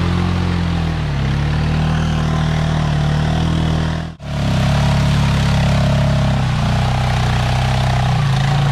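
ATV engine running under load, its note rising and dipping with the throttle, with a brief break about four seconds in.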